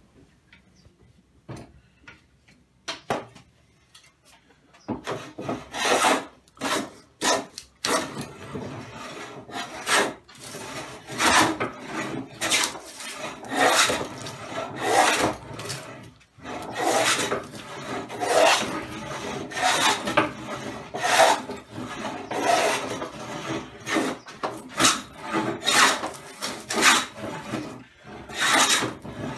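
Hand rasping of wood in repeated back-and-forth strokes, about one to two a second, beginning about five seconds in after a few light clicks.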